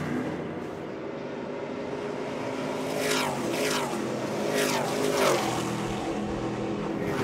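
A pack of Stadium Super Trucks racing past at full throttle, their V8 engines running hard. Several trucks go by close in quick succession, each engine note dropping in pitch as it passes, loudest a little after five seconds in.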